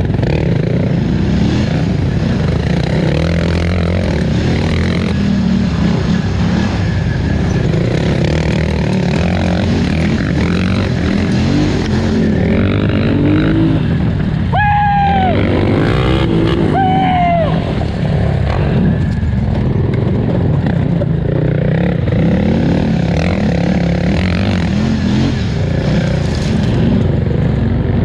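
2018 Polaris Scrambler 1000 XP ATV's twin-cylinder engine running hard under race load, its revs rising and falling with the throttle. Two short high squeals sound about halfway through.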